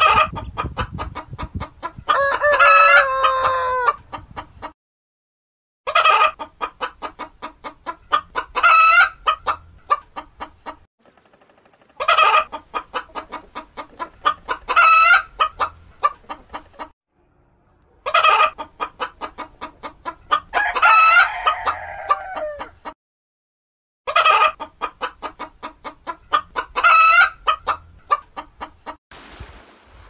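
Chickens clucking in rapid runs, with a rooster crowing among them. The same few seconds of sound come round about five times, each stretch cut off by a short silence.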